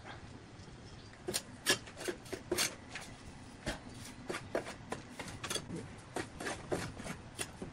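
Bricklayer's trowel scraping and tapping through wet mortar on a concrete slab. Irregular short scrapes and taps, a few a second, begin about a second in.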